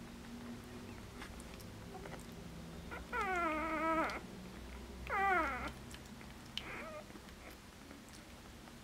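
Four-day-old Border collie puppy crying: two high cries about three and five seconds in, each sliding down in pitch, and a short fainter one soon after.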